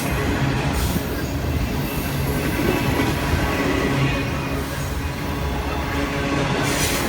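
Union Pacific manifest freight train rolling past: a steady low rumble of wheels on rail, with brief bursts of high hiss.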